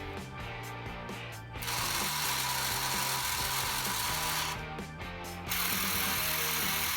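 The plastic gear-and-ratchet drive of a 1970 Hot Wheels Tune-Up Tower's belt elevator clicking rapidly as it lifts a toy car. About a second and a half in, the clicking thickens into a steady whirr, which briefly eases off around the five-second mark.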